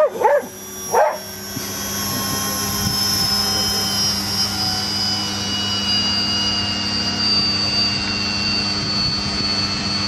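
A dog barks a couple of times. A machine whine then sets in and holds steady while its pitch sinks slowly, over a steady low hum.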